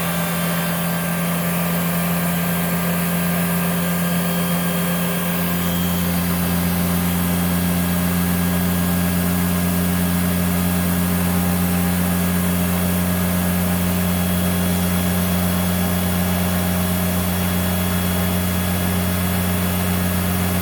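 Hoover S3639 WindTunnel Plus canister vacuum running steadily under test, a constant motor hum with airy hiss; the low hum grows a little stronger about five seconds in.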